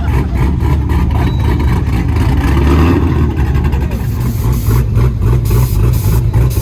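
A loud vehicle engine running steadily with a deep, low rumble.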